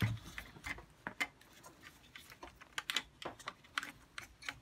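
Irregular light clicks and taps of hard plastic vacuum-cleaner parts being handled and fitted together.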